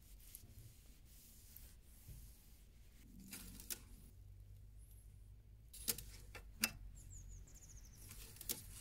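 Faint handling sounds as an engine oil dipstick is wiped with a cloth rag and slid back into its tube: soft rubbing and a few sharp light metal clicks, over a low steady hum.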